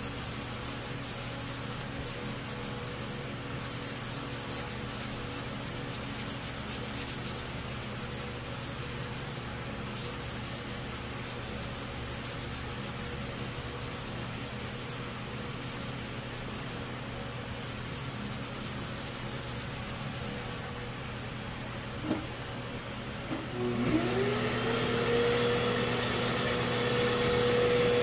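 Hand sanding of aerosol primer on a plastic part with Eagle Abrasives K-grit sandpaper on a hard block, in repeated back-and-forth rubbing strokes. The strokes stop about 21 s in. About 24 s in a small electric motor starts, its whine rising in pitch as it spins up, then running steadily.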